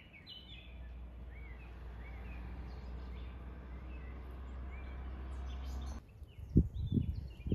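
Small songbirds chirping in short, scattered calls over a steady low rumble. The rumble cuts off about six seconds in, and a few heavy low thumps follow near the end.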